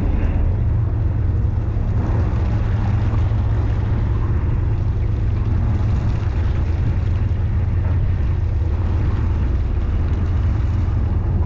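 Steady low drone of a 70 ft fishing boat's engine running, with a constant rumble of wind and water noise over it.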